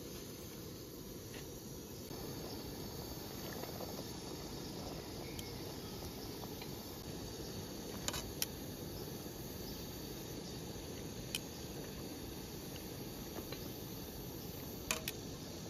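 Metal tongs clicking sharply against an aluminium pot four times while grape leaves are turned in hot water, over a steady low rush.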